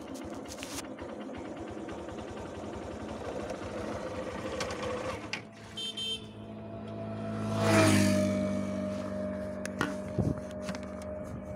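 Motorcycle engine running with traffic noise. An engine sound swells to its loudest about eight seconds in, dips slightly in pitch, then settles to a steady hum.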